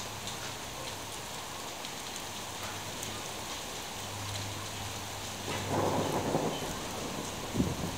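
Steady rain falling, with a roll of thunder swelling about five and a half seconds in and a single sharp bang near the end.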